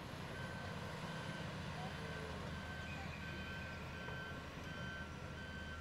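Heavy diesel engine of a Caterpillar 336E excavator running steadily while it works, with a backup alarm beeping about three times every two seconds from just after the start. A second beeping at a different pitch joins about halfway through.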